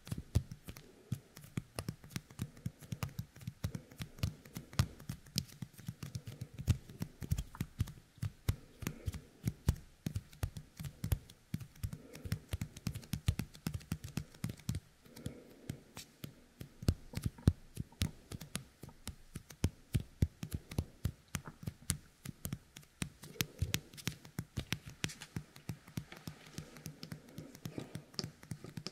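Fingers coated with the sticky goo of a Yōkai Kemuri toy, pressed together and pulled apart right at a binaural dummy-head microphone's ear. The tacky skin gives a dense, irregular run of small clicks and crackles.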